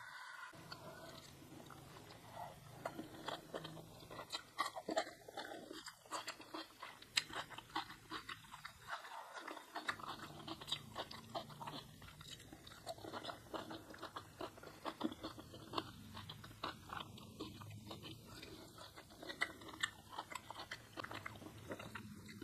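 Close-miked chewing and biting with frequent crisp crunches: a person eating a rice meal with salted fish and raw vegetables.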